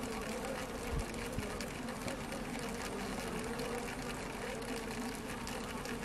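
A honey bee colony inside a hive humming steadily, with a fast, irregular patter of light tapping from bees. A soft low knock about a second in.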